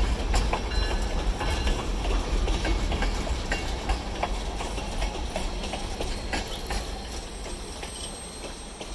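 Freight train tank cars rolling past, their wheels rumbling and clicking on the rails. The sound fades as the last car passes and moves away.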